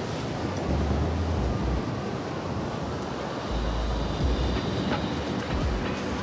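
Wind buffeting the microphone in low rumbling gusts, over the steady rush of breaking surf.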